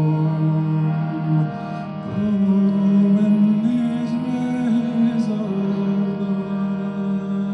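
Slow, chant-like singing in held notes, each sustained for a second or more before moving to the next pitch.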